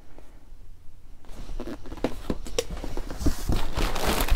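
Packaging being handled while items are dug out of a box: light knocks and clicks from about a second and a half in, then crinkling and rustling that grows louder toward the end.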